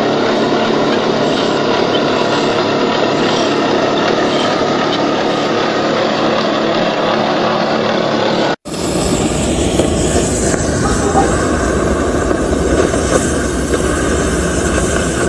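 Steady industrial noise of steel being ground or cut with sparks flying. About eight and a half seconds in, a hard cut switches to the steady hiss and rumble of an oxy-fuel cutting torch burning through a thick steel flange.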